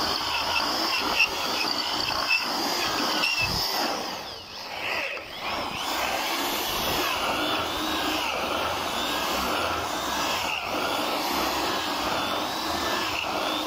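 Electric hand drill running, its bit boring into the lock of a motorcycle's fuel-tank cap to drill out a cap that won't open. The drilling is steady, easing off briefly about four seconds in.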